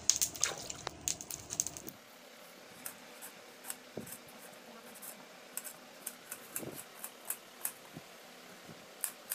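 A knife slicing red onions on a steel plate: short light clicks as the blade meets the plate, about one or two a second. For the first two seconds there is a louder clatter of sharp clinks instead.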